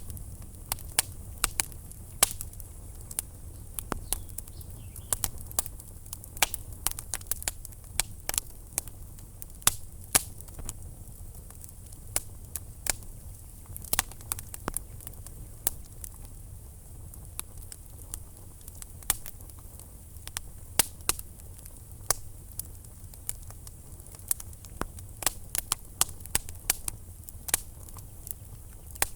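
Wood fire burning in a fireplace, crackling with frequent irregular sharp pops over a steady low rumble of flame.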